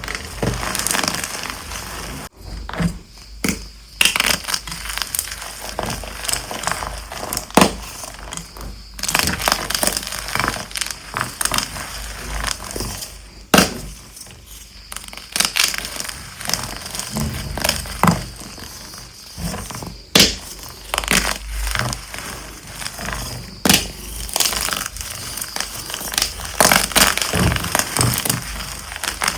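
Dyed gym chalk blocks being crushed and crumbled: a crunchy crackling with many sharp, irregular cracks as the blocks break apart.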